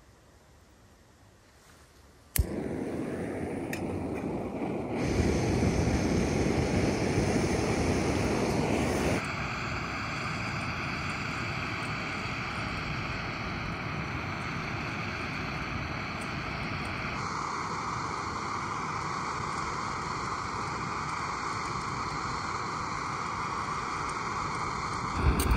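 Near quiet for about two seconds, then a click and a steady rushing of wind, which shifts in tone a few times.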